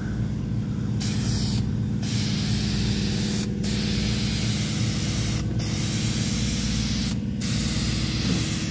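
Aerosol can of painter's guide coat hissing as it sprays a light dusting coat over primer, in about five passes with brief pauses as the nozzle is let go. A steady low hum runs underneath.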